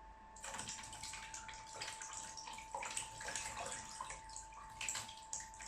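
Water poured from a cup onto a car power window switch, splashing and trickling over the switch's buttons as it fills up.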